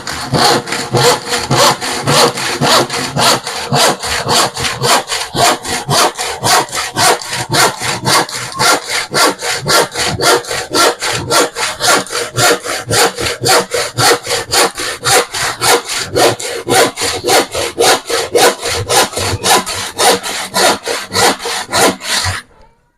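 Hand saw cutting through a plywood offcut in quick, even back-and-forth strokes, about three a second, stopping suddenly shortly before the end.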